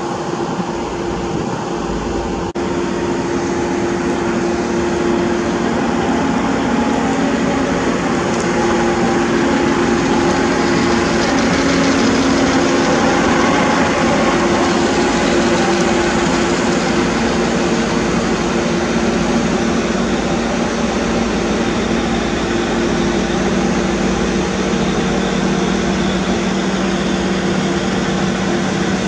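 Diesel engine of a Plasser & Theurer USP 5000 RT ballast regulator track machine running with a steady hum as the machine rolls slowly past on the rails.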